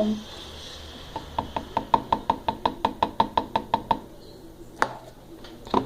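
Rapid, even clicking, about seven light ticks a second for nearly three seconds, as more salt goes into a gelatin slime mixture in its bowl. Two single sharp knocks follow near the end.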